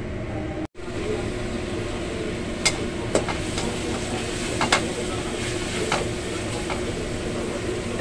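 Vegetables stir-frying in a wok: a steady sizzle, with a spatula clicking and scraping against the pan a few times.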